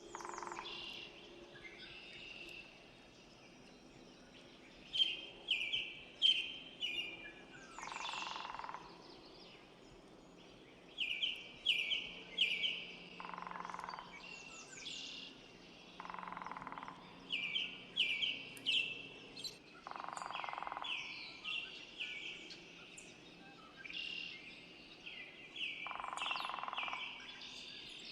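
Small songbirds chirping: quick runs of short, high chirps, repeated every few seconds, with a lower, rougher sound about a second long coming in several times between them.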